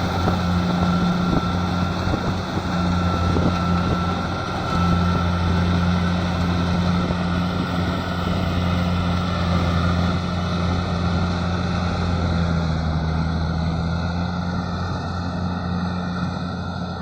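Rice combine harvester running steadily under load: an even engine hum over a constant mechanical rush, with a faint high whine in the first few seconds.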